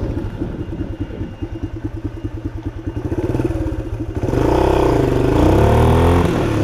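1976 Honda XL175's single-cylinder four-stroke engine putting along at low revs with distinct firing beats, then revved up about four seconds in, its pitch rising and falling with the throttle. Under hard throttle it misfires, which the rider puts down to a weak ignition coil.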